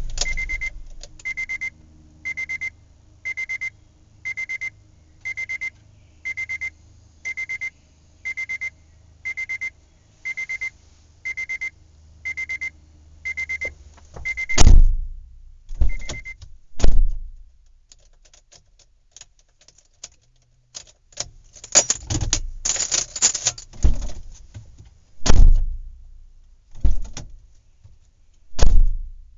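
A car's warning chime beeping about once a second, some fifteen times, over a faint low hum. Then several heavy thumps of car doors being shut, with rustling and clatter of people moving about between them.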